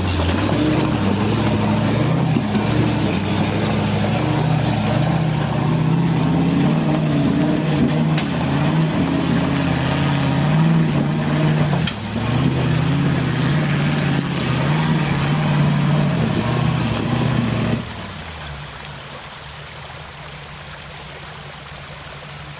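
V8 engine of a modified Land Rover Defender working hard as the truck crawls over rocks, revving up and down. Near the end it drops to a quieter, steady idle.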